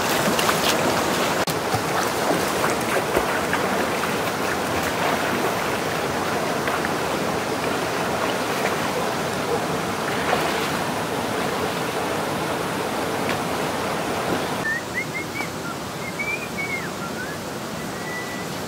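Shallow river water splashing and rushing as people wade through it. About three-quarters of the way through it gives way to a quieter outdoor background with a few short, high chirps.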